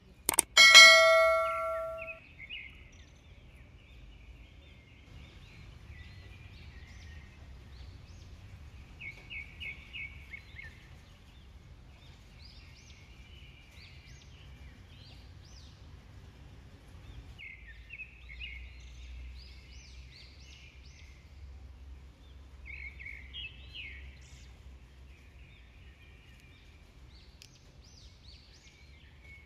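A click and a bell chime from a subscribe-button sound effect, ringing out for about two seconds just after the start. After it, faint bird chirps come and go over a low background rumble.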